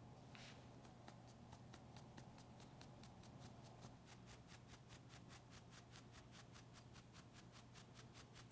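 Fine-mesh metal sieve being tapped or shaken to sift flour and cocoa powder: faint, quick, even ticks, about five a second, starting about a second in.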